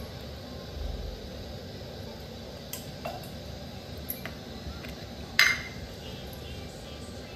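Kitchen containers and utensils being handled beside a dosa pan: a few light clicks and taps, then one louder clatter about five and a half seconds in, over a steady low background noise.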